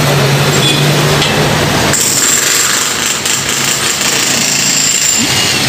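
Jackhammers breaking concrete, a loud, steady rattle of rapid blows, with a high whine joining about two seconds in.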